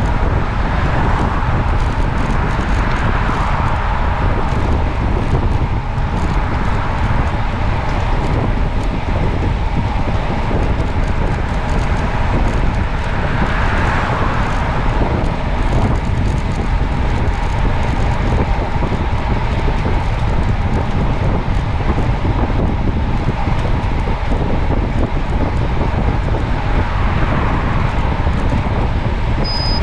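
Steady rush of wind over the microphone mixed with road noise while moving along a road.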